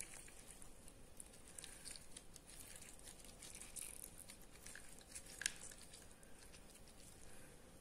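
Faint scattered patters and small clicks as a plastic lemon squeezer is pressed over a salad and lemon juice drips onto it, with one sharper click about five and a half seconds in.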